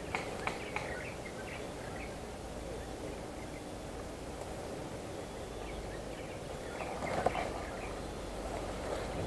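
Tall grass rustling against the camera as its wearer shifts position, over a steady outdoor background. There are a few faint sharp clicks in the first second and a brief louder rustle about seven seconds in.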